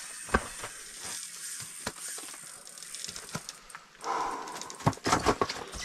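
Scattered clicks, knocks and rustling as an angler handles a fishing rod and reel and shifts his clothing and gear, with a short rustle about four seconds in.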